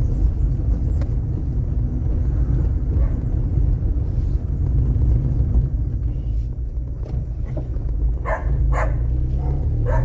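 Car driving slowly over a street of concrete paving blocks, heard from inside the cabin as a steady low rumble of tyres and engine. A dog barks twice, about a second apart, near the end.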